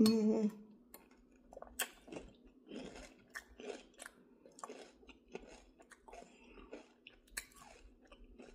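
Close-up chewing of a spoonful of soup: irregular soft clicks and wet mouth smacks. A brief hum of the voice comes right at the start.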